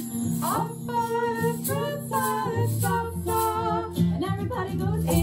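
Children's song playing: a woman singing a melody over instrumental backing.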